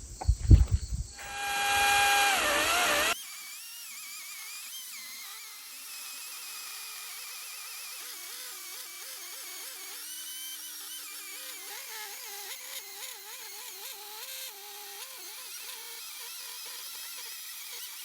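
DeWalt electric chainsaw running briefly with a loud, high whine whose pitch sags as it bites, then stops abruptly. It is followed by a long faint stretch of thin, wavering high tones.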